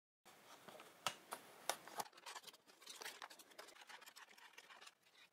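Faint handling sounds of a small cardboard toy box being opened and its clear plastic tray slid out: light scratches and scattered clicks, a few sharper ones in the first couple of seconds.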